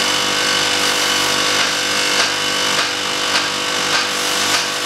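Air-conditioner compressor of a homemade ice machine running steadily under refrigerant charge, with a regular tick a little under twice a second.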